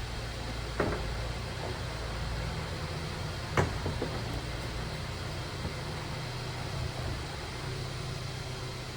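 Mercedes-Benz convertible running with a steady low hum, with two sharp clunks, about one second in and again about three and a half seconds in.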